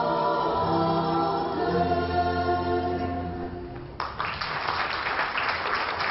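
A small group of voices singing slow, held chords in harmony with no instruments, dying away about three and a half seconds in. About four seconds in, applause breaks out suddenly and carries on.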